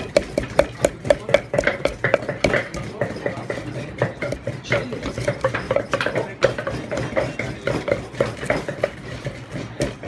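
Wooden pestle pounding in a tall Thai mortar, about two to three dull knocks a second, crushing garlic, long beans and chillies into a papaya-salad dressing.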